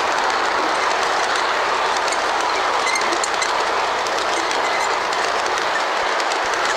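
G scale model freight cars rolling past close by: a steady noise of wheels running on the track, with faint light clicks mixed in.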